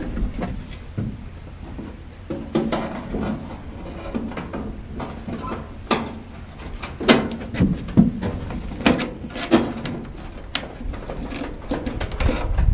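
Irregular clinks and knocks of hands working J-hook hardware against an aluminium diamond-plate truck tool box.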